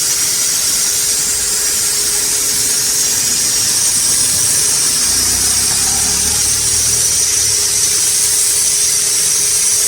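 Pressure washer running, its water jet hissing steadily over a steady motor hum, then cutting off suddenly at the end.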